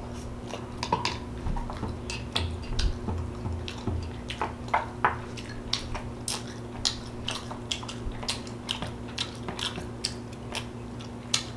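Mouth sounds of eating canned chili: chewing and lip smacking heard as a string of short irregular clicks, about one or two a second, over a steady low electrical hum.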